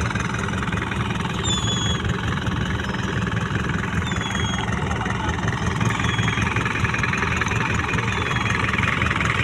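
Fishing boat's engine running steadily at idle, a constant low drone. A few short, high chirps that fall slightly in pitch come through over it about every two seconds.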